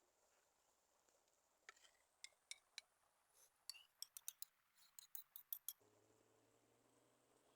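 A quick run of light, sharp clicks and clinks, like small hard objects being handled. Near the end a faint, steady low hum starts.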